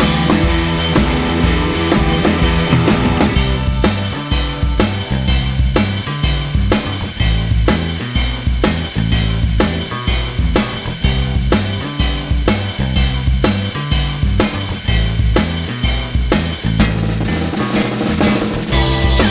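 Background music with a driving drum-kit beat and a moving bass line.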